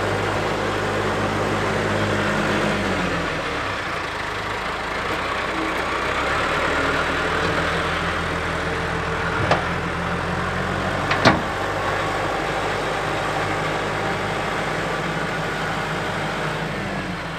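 Tractor engine running steadily, its speed dropping about three seconds in. Two sharp clicks come near the middle.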